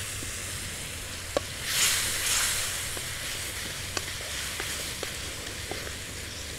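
Chili, garlic, palm sugar and tamarind sauce sizzling in hot oil in a wok as it is stirred with a wooden spatula. The sizzle swells louder for about a second, around two seconds in, with a few sharp clicks scattered through.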